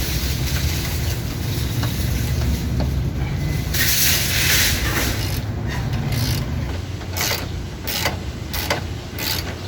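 Ratchet wrench clicking in short strokes, a few a second in the second half, as the bolts of a new transmission mount on a 2007 Honda Fit are driven in. A steady low rumble runs underneath, with a brief hiss about four seconds in.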